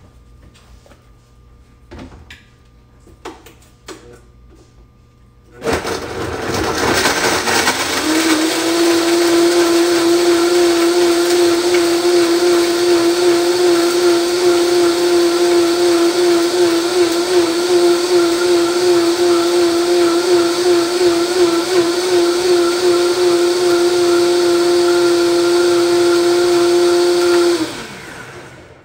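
Countertop blender blending a thick date dressing. The motor starts about six seconds in and climbs to full speed within a couple of seconds. It runs with a steady high whine for about twenty seconds, then winds down and stops near the end. A few light knocks come before it starts.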